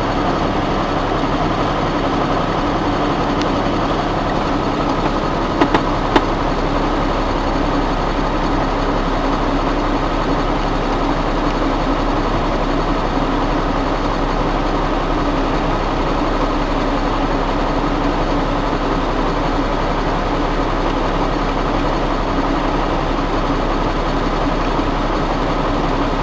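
Logging truck's diesel engine and road noise, a steady unchanging drone, with a couple of brief clicks about six seconds in.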